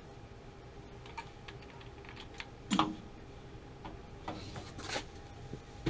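Scattered light clicks and knocks of hands handling a gas water heater and its control valve, with one louder knock about three seconds in, over a faint steady hum.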